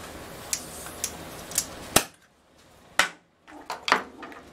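Clicks and clatter of metal hand tools, an air blow gun and pliers, handled and set down on a wooden workbench, about seven sharp knocks with the loudest about two seconds in.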